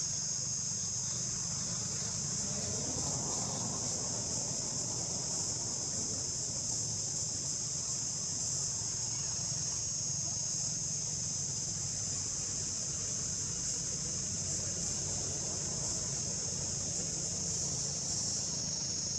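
Steady, high-pitched drone of an insect chorus, unbroken throughout, over a faint low hum.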